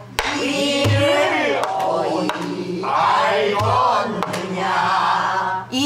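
A group of students singing a line of a pansori danga together in a wavering pansori style, accompanied by a buk barrel drum. The drum gives sharp stick strikes and two deep thuds, one about a second in and one about three and a half seconds in.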